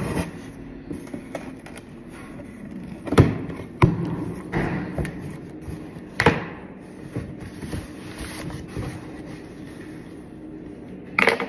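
Cardboard shipping box being handled and opened: a few sharp knocks and thumps, about three, four and six seconds in and again in a quick cluster near the end, with scraping and rustling of cardboard between.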